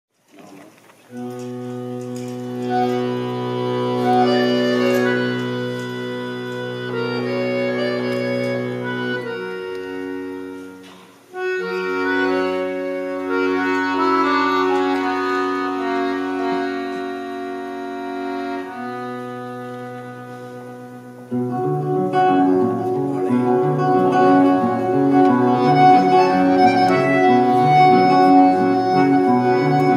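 Live instrumental introduction on accordion and acoustic guitar. The accordion holds long chords that swell and fade, breaking off briefly around ten seconds in. About two-thirds of the way through, a steady rhythmic accompaniment begins.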